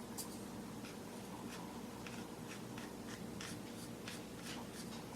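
Faint, short scratching strokes, irregularly spaced, of glue being worked onto the edge of a plastic speaker trim ring by hand, over a low steady hum.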